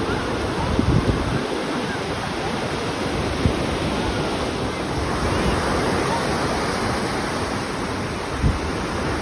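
Ocean surf breaking and washing up the sand in a steady rush, with a few low thumps of wind on the microphone about a second in and near the end.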